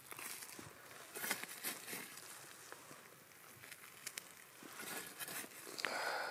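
Faint crackling and sizzling from campfire coals and the butter in foil-wrapped trout packets cooking on them, with a brief louder rustle near the end.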